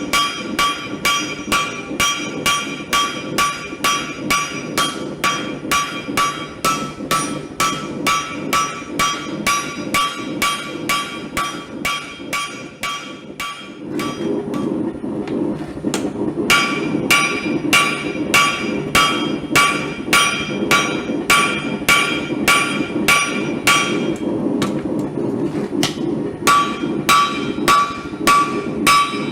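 Hand hammer striking a hot axe head on an anvil, about two blows a second, each blow ringing; twice the ringing drops out for a few seconds while the blows go on. A steady rushing noise runs underneath and grows louder about halfway through.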